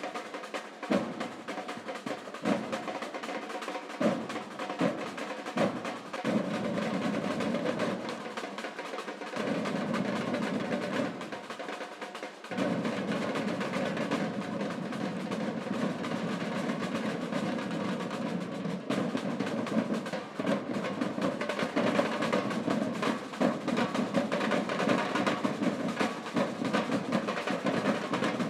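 Samba batucada percussion ensemble playing. Separate drum hits and short passages give way about twelve seconds in to the full group playing a dense, steady rhythm.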